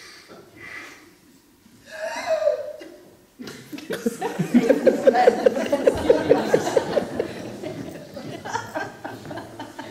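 Audience laughing, setting in about three and a half seconds in, with one rhythmic laugh standing out above the rest.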